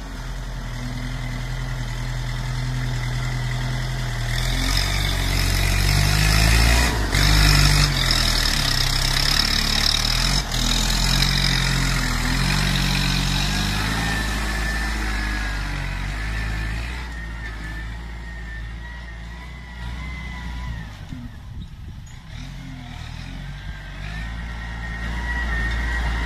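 Kubota M8540 tractor's diesel engine working as it pushes soil with its front blade, the engine note shifting up and down. It is loudest a few seconds in and fades somewhat past the middle.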